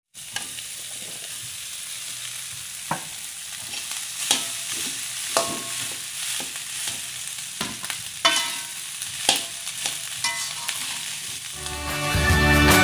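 Shallots, garlic and chilies sizzling in oil in a wok, with a steady hiss and a spatula knocking against the pan about eight times as the aromatics and then the rice are stirred. Music comes in near the end.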